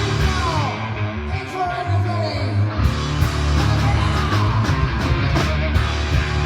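Rock music played by a band: guitar over a heavy bass line, with steady drum hits.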